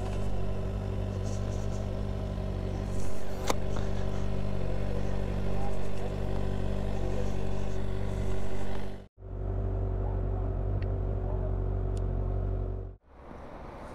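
Kawasaki ZX-6R 636's inline-four engine running steadily at low revs, with small swells in level. The sound drops out abruptly twice, about nine and thirteen seconds in.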